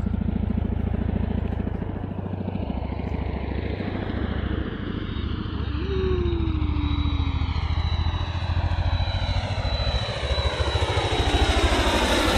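Tandem-rotor CH-47 Chinook helicopter flying overhead: a fast, steady beat of rotor blades under a sweeping, phasing whoosh. It grows louder near the end as it passes over.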